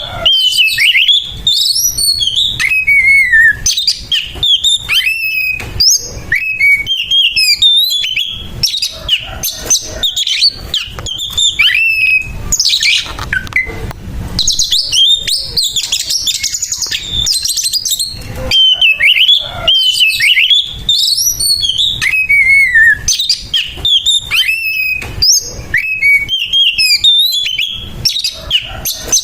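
Oriental magpie-robin (kacer) singing its harsh fighting song: a fast, unbroken run of whistled glides and trills mixed with rough, rasping notes.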